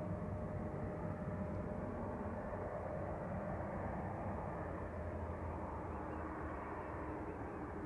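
Steady low rumble of jet airliner engines running, with a constant low hum and a faint steady tone.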